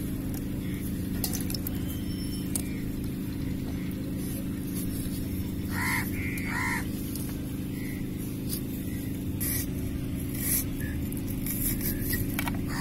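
A steady low motor hum with several even tones runs throughout. Over it come light scattered clicks of green chillies and onions being sliced against an upright fixed cutting blade.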